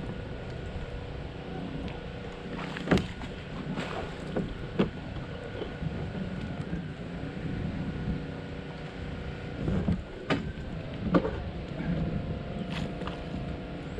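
A steady motor hum with several sharp knocks and clicks scattered through, the loudest about three seconds in and again around ten and eleven seconds.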